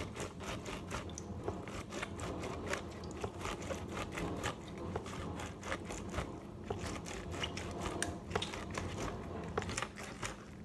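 A lemon half being pressed and twisted by hand on a plastic citrus reamer, an irregular run of small clicks as the pulp is ground against the ridges to wring out all the juice.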